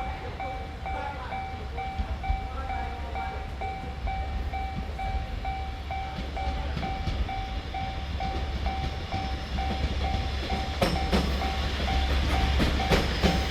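Japanese level-crossing warning bell ringing in an even, repeating pattern. From about eleven seconds in, a train draws near and passes, its wheels clacking over the rail joints over a low rumble.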